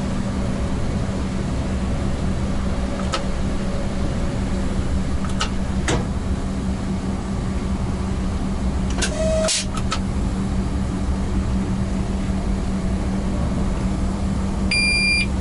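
Cab of a ChS200 electric locomotive under way and accelerating: a steady electric hum over running noise, with a sharp click every few seconds as the controller buttons are pressed to cut out starting resistance. A quick cluster of clicks comes about nine seconds in, and a short high electronic beep near the end.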